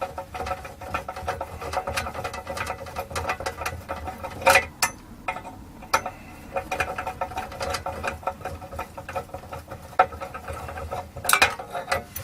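Screws being undone from a bench power supply's metal back panel and the panel being handled: a run of small clicks, scrapes and rattles, with a steady hum underneath and louder knocks about four and a half seconds in and near the end.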